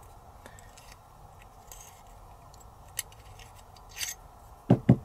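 Small steel multi-tool scraping and clicking against an AR-15 bolt carrier as it is turned to scrape carbon buildup off a ledge: faint scrapes and light ticks, with a couple of low knocks near the end.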